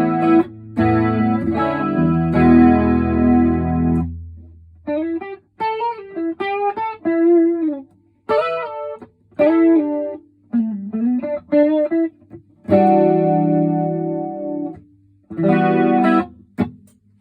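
PRS SE Custom 24 electric guitar through a BOSS DC-2 Dimension Chorus on mode 2 and a Vox AC30 amp. Strummed chords, then single-note licks with string bends, then more chords that stop shortly before the end.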